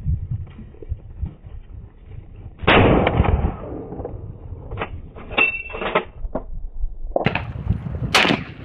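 Scoped hunting rifle fired: a loud shot with a long echoing tail about three seconds in, and further sharp reports about seven and eight seconds in. Metallic clicking between the shots.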